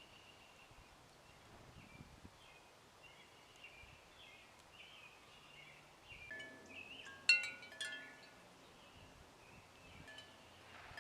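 Wind chimes ringing: several clear tones sound together from about six seconds in, with the loudest strike just after seven seconds and a few more before they fade. Faint high bird chirps come before the chimes.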